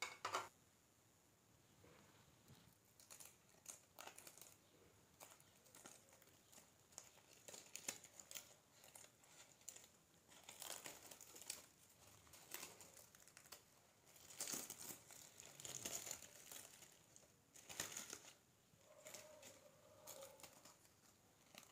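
Faint crinkling and tearing rustles of a cooked banana-leaf parcel being handled and opened, with scattered light clicks and a sharper knock at the start.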